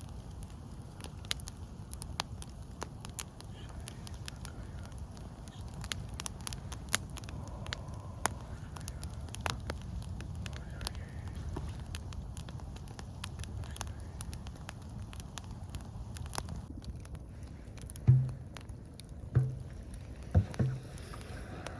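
A steady low rush with many scattered crackles and clicks. About eighteen seconds in, a few deep plucked notes of music begin.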